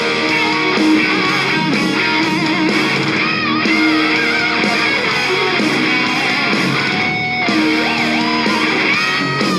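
Rock band playing an instrumental passage with no singing, led by electric guitar over the band.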